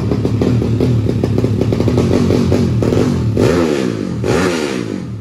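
A 300 cc Honda drag-race motorcycle engine runs loudly with a rapid clattering beat, then is revved twice in quick succession near the end.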